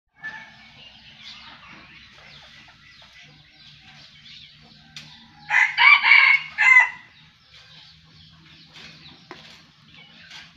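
Rooster crowing once, about five and a half seconds in: a loud call of about a second and a half in a few linked parts. Faint scattered clucks and chirps come before and after it.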